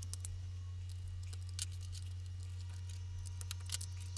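Steady low mains hum, with scattered faint light clicks and ticks.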